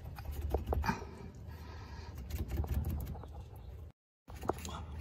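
Rust-seized intermediate steering shaft's universal joint being twisted and tugged by hand on the steering rack's input splines: a few sharp metal clicks and knocks, with a cluster of them two to three seconds in, over a low steady hum. The sound cuts out briefly near the end.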